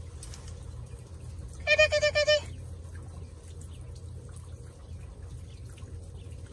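A woman's high-pitched call to hidden kittens, a quick run of syllables held on one pitch for under a second, about two seconds in, over a steady low hum.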